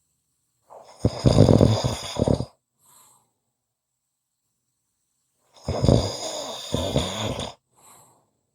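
A person snoring: two long snores, each about two seconds, some four and a half seconds apart. Each is followed by a faint short breath.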